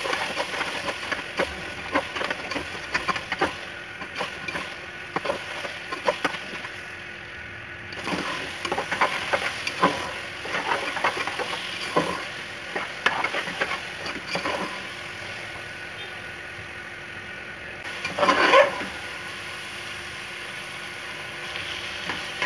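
Metal ladle scraping and clacking against an aluminium pressure-cooker pot as grated carrots are stirred and fried in ghee for gajar ka halwa, over a steady sizzle and a faint steady hum. The strokes come thick and fast at first, thin out later, with one louder scrape near the end.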